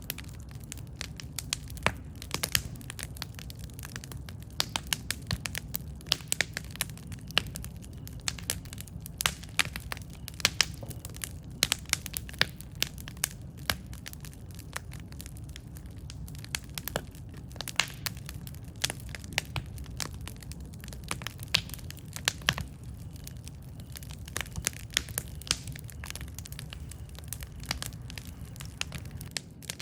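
Wood campfire crackling, with frequent irregular sharp pops and snaps over a steady low rumble of the burning fire.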